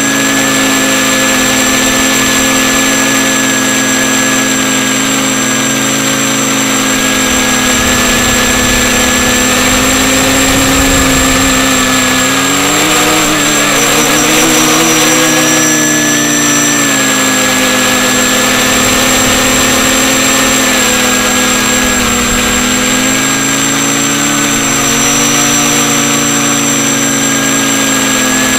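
FPV quadcopter's motors and propellers whining steadily in flight, the pitch rising and falling a little about halfway through and again later on.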